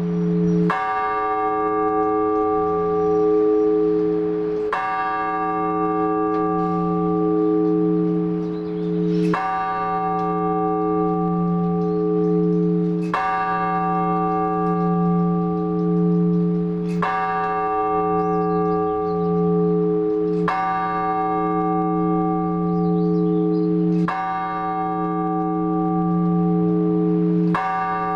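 A single large Orthodox church bell struck with slow measured strokes, eight strokes about three and a half seconds apart, each ringing on with a deep, slowly pulsing hum until the next. This is blagovest, single measured strokes on one of the big bells.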